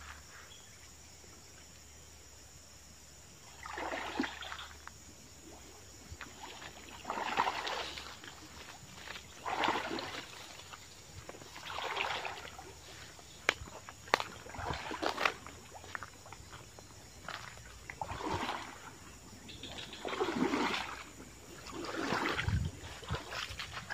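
A person wading through shallow stream water, a slosh with each stride about every two to three seconds, beginning a few seconds in. A few sharp clicks come around the middle.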